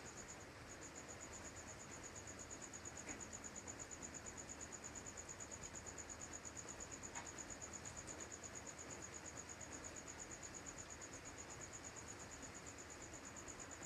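An insect, cricket-like, trilling steadily: a high, evenly pulsed chirp repeating several times a second, over a quiet background hiss.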